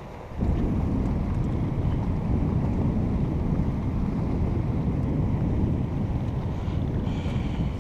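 Wind buffeting the microphone: a loud, steady low rumble that sets in suddenly about half a second in.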